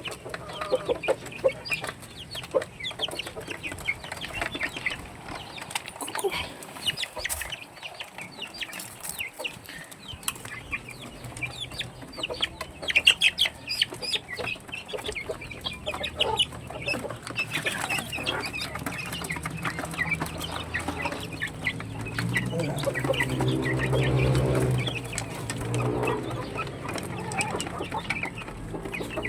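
Backyard chickens clucking, with many short, sharp calls. A low hum swells about three-quarters of the way through.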